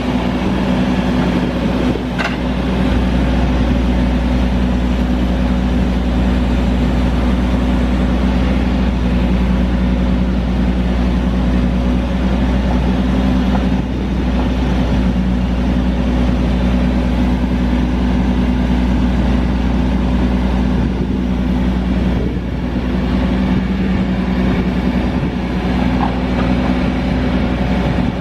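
Caterpillar C9 diesel engine of an Atlas Copco ROC F9CR crawler drill rig running steadily as its hydraulics raise the boom and drill feed upright, with a light knock about two seconds in.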